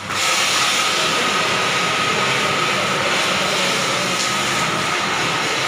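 A bundle of chakri (ground-spinner) firecrackers burning and spinning: a loud, steady hiss of spraying sparks with a thin, steady whistling tone running through it.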